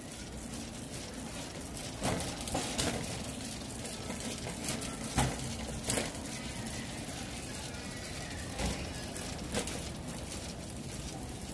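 Steady background noise of a crowded warehouse store, with a few sharp knocks and rattles from a metal shopping cart being pushed along.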